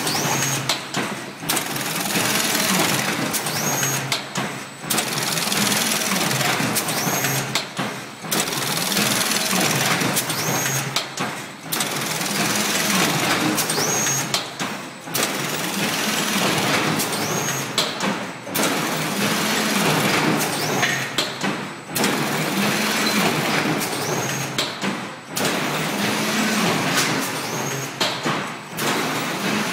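An automatic paint brush head assembly machine running through its cycle, filling bristle into ferrules. It makes a loud, steady rushing mechanical noise that drops out briefly about every three and a half seconds, under a low motor hum that shifts pitch in steps.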